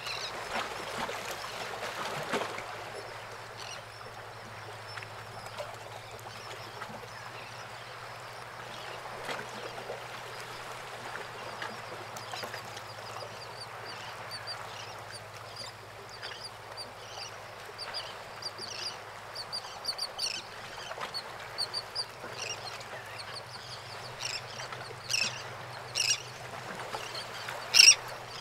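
Outdoor ambience of birds calling: many short, high calls repeat over a steady background hiss, with a few louder calls near the end.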